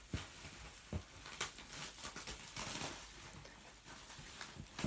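Cardboard shipping box and its packaging being handled and opened: irregular rustling with a few small knocks and clicks.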